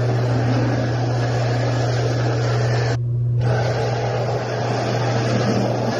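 Dyson cordless stick vacuum running steadily with a small brush tool on a hard floor, over a steady low hum. Its rushing sound drops out briefly about three seconds in.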